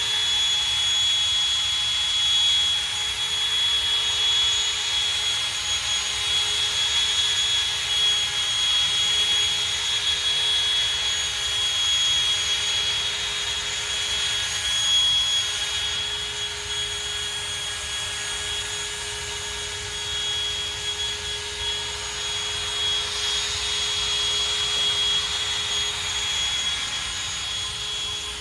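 Electric drill spinning a sanding pad against a plastic headlight lens, running steadily with a high whine through one long pass.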